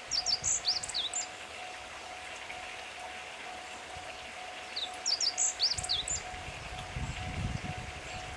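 Meadow bunting singing two short phrases of quick high chirps, about five seconds apart, over a level-crossing alarm ringing steadily in the distance. In the last couple of seconds the low rumble of an approaching train begins.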